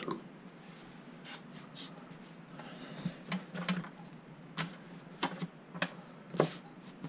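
Handling noise on a wooden desk: small objects picked up and set down, with a sharp click at the start and a string of separate light taps and knocks, the loudest near the end.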